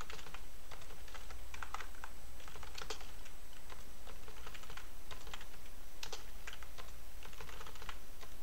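Typing on a computer keyboard: irregular runs of quick keystrokes, over a steady low hum.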